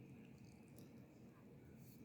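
Near silence: room tone with a faint steady high hum and two faint clicks.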